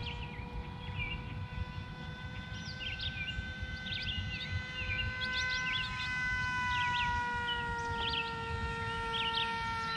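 Electric motor and propeller of a Mini AR Wing RC flying wing in flight: a steady high whine that dips slightly in pitch about seven seconds in.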